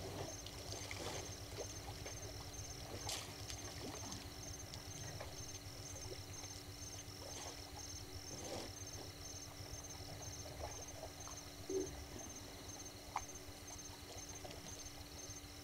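African bush elephants drinking at a waterhole: faint water trickling and splashing as their trunks draw up and pour water. A high chirp pulses evenly throughout, and one brief louder sound comes near the end.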